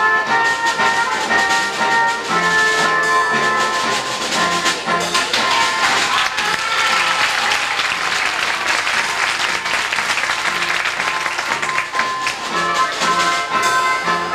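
Music playing, with audience applause swelling for several seconds in the middle, where the music drops back, then the music comes up again near the end.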